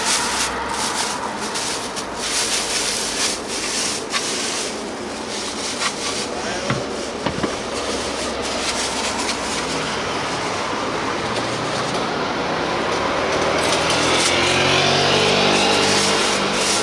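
Street traffic noise with scattered clicks and knocks early on. In the last few seconds a motor vehicle's engine rises in pitch and grows louder as it accelerates.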